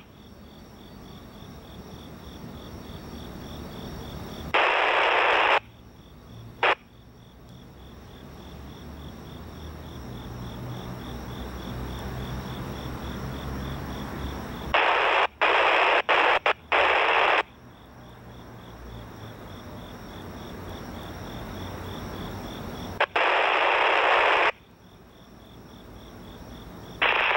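A radio scanner breaks in with loud bursts of static four times, each cutting in and off abruptly, the third stuttering on and off. Between the bursts are a low diesel locomotive rumble that grows louder toward the middle and steady cricket chirping.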